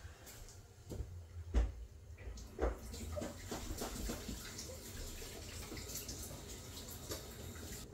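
Eggs knocked against the edge of a metal spoon and cracked into a mixing bowl: two sharp knocks about a second apart with lighter ticks around them, followed by a steady hiss.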